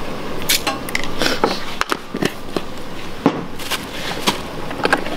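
Light clicks and taps of a metal spoon against a glass sugar jar, and crackling of plastic seasoning bags being handled, over a steady hiss.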